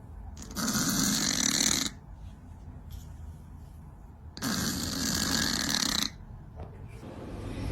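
A cat snoring: two long snores, each about a second and a half, about four seconds apart.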